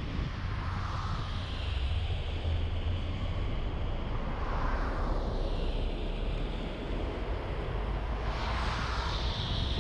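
Steady driving noise from a moving vehicle: a low engine and road rumble under a broad tyre hiss on wet asphalt, with wind on the microphone. The hiss swells and eases every few seconds.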